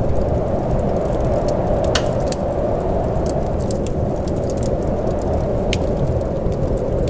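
Steady rain with scattered sharp ticks and pops.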